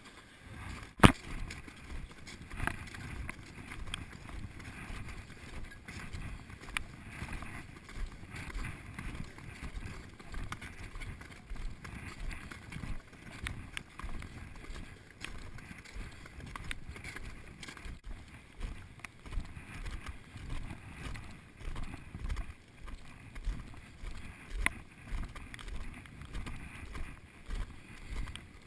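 Footsteps of people walking on glacier ice, a steady run of crunching steps, with a sharp click about a second in.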